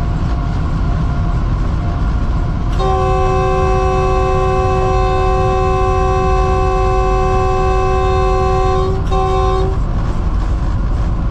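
Diesel locomotive's air horn heard from inside the cab: one long blast of about six seconds sounding several notes at once, then a short second blast, over the steady rumble of the engine and the running train.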